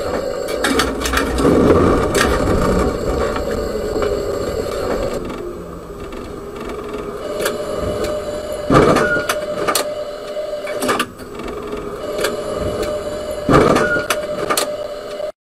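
Tram running noise heard from the driver's cab, with rattles and clicks and, in the second half, a steady whine. A sharp thump of the tram striking a car comes about nine seconds in, and the same impact is heard again about five seconds later. The sound cuts off suddenly near the end.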